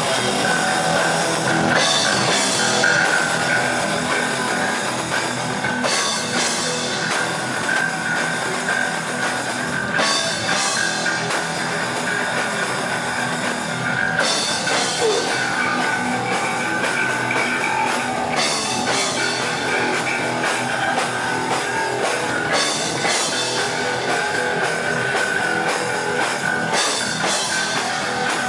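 Thrash metal band playing live: electric guitar over a drum kit, with cymbal crashes about every four seconds.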